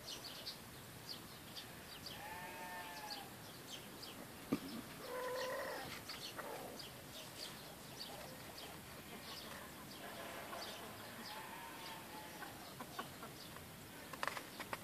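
Small birds chirping throughout, with farm animals calling a few times: a drawn-out call about two seconds in, a louder one lasting about a second around five seconds in, and a fainter one around ten seconds in.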